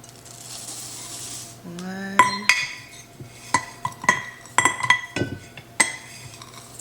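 A brief soft hiss, then a quick run of sharp, ringing clinks and taps of kitchen utensils against a mixing bowl.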